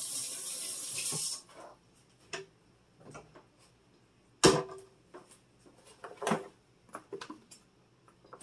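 Kitchen tap running into a stainless steel sink, shut off about a second and a half in, followed by scattered knocks and clicks of handling at the counter, the loudest a sharp knock about four and a half seconds in.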